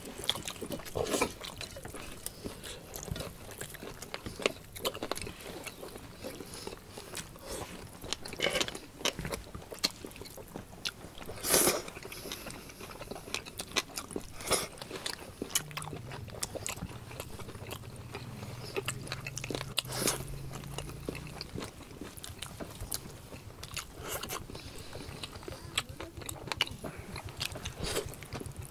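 Eating sounds: chewing and biting into boiled organ meats, with sharp clicks and scrapes of table knives cutting on the platter and plates. A low steady hum sounds for several seconds midway.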